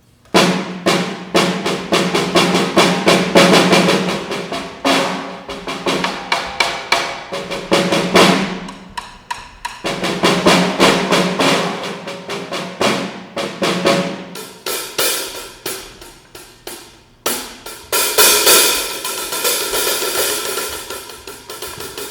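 Drum kit played in fast rolls of rapid strikes, dropping away briefly about halfway, then cymbals washing over the drumming in the last few seconds.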